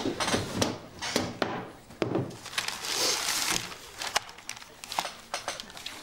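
Paper rustling and crinkling as an envelope or sheet of paper is handled at a desk, with scattered knocks and clicks. A longer rustle comes about three seconds in.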